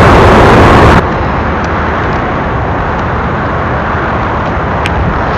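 Distant freight train rolling downgrade, heard as a steady noisy rumble with no clear engine tone. It drops abruptly in level about a second in.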